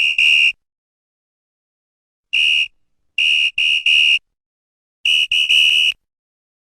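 Referee's whistle blown in short, sharp blasts of one steady high pitch: a short pair right at the start, one blast about two seconds later, a group of three about a second after that, and a quick run of four near the end.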